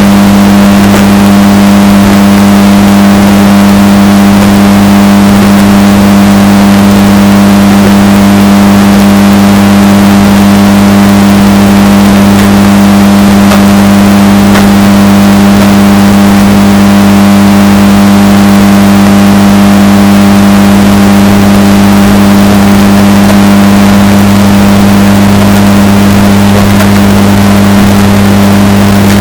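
Washing machine running with a steady droning hum, heavily bass-boosted and distorted so it sits at near full loudness without change.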